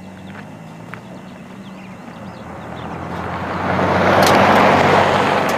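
A car coming up and driving past on a paved road. Its engine hum and tyre noise build steadily, peak loudly about four and a half seconds in, then begin to fade.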